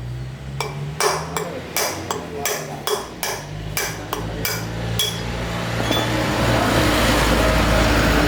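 About a dozen sharp hammer-like knocks, two to three a second. Then, from about six seconds in, a steady rushing noise with a low hum builds up and holds to the end.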